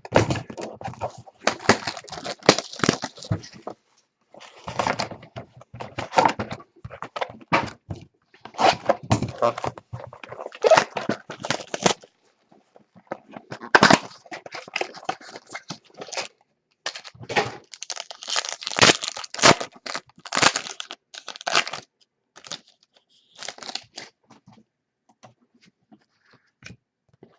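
Trading card packs being torn open and their wrappers crinkled as the cards are pulled out and handled, in irregular bursts of tearing and rustling that thin out after about 22 seconds.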